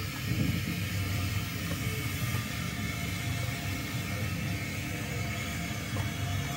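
O gauge model steam locomotive and wagons running along the track close by, a steady low rumble of wheels and motor on the rails.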